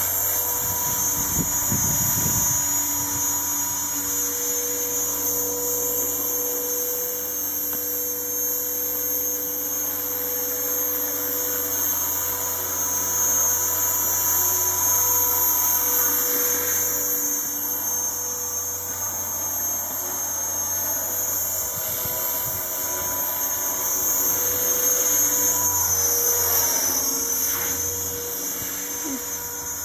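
Razor 400 electric RC helicopter in flight: its brushless motor and spinning rotors give a steady high-pitched whine. The sound swells and eases as the helicopter climbs and manoeuvres.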